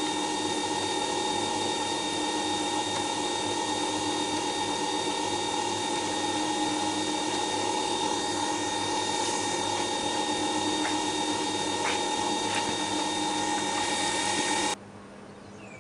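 Record Power WG200 wet-stone grinder running steadily with a motor whine while a bowl gouge is ground on its water-cooled stone. It switches off abruptly near the end.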